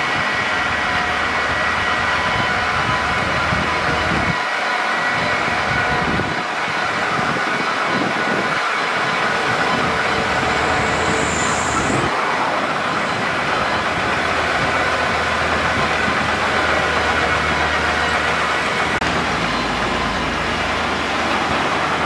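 Crawler bulldozer working, its diesel engine running steadily.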